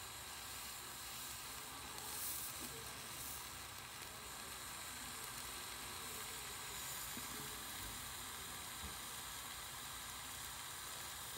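Small jeweler's torch hissing steadily, its flame heating a joint for hard soldering.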